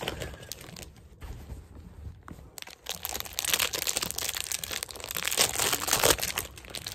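Clear plastic wrapper around a squishy toy crinkling as it is handled and pulled open by hand. Faint at first, then louder and busier from about three seconds in.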